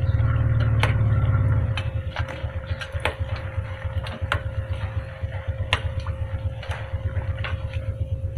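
Metal slotted skimmer clinking against the steel frying pot about a dozen times as fried banana spring-roll sticks are scooped out of the oil. A steady low rumble runs underneath, louder for the first couple of seconds.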